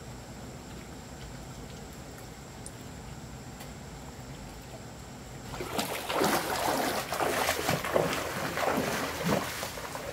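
Splashing and sloshing of a person wading through a shallow stream, step after step, starting about halfway through after a faint steady hiss.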